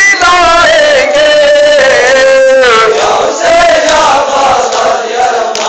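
Male Ashura mourners chanting a loud Muharram lament with long drawn-out notes, the pitch sliding between them, over a crowd of voices.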